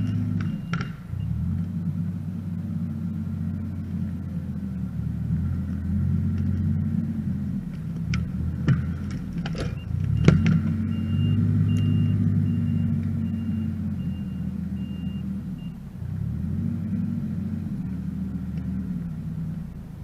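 Kubota R430 articulated wheel loader's turbo-diesel engine running and revving up and down under hydraulic load as its grapple lifts and moves a log. There are a few sharp knocks near the middle as the grapple handles the log. A rapid high beeping, like a backup alarm, sounds for a few seconds after that.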